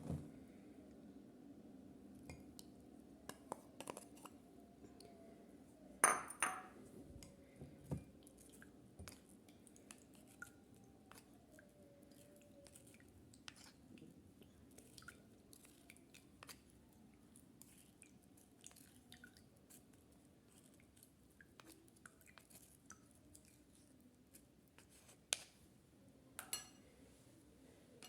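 Faint, scattered clicks and light clinks of glassware and kitchen utensils being handled, with a louder knock about six seconds in and two more near the end, over a faint steady hum.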